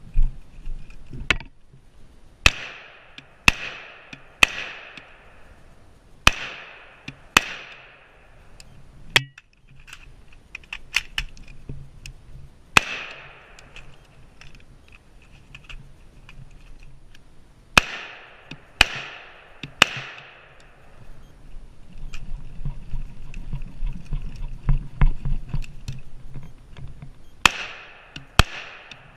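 Diamondback AR-15 rifle firing single shots, about a dozen spaced unevenly, mostly in quick groups of two or three, each crack followed by a short ringing echo. Faint clicks sound between the groups.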